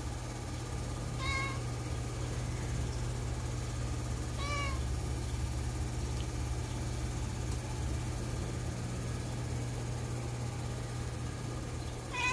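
Domestic cat meowing: three short meows, about a second in, about four and a half seconds in, and one more at the very end, over a steady low hum.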